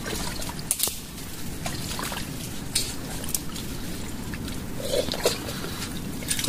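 Wet mangrove mud and shallow water being worked by hand: irregular squelches, sucks and small splashes over a steady trickling, watery background.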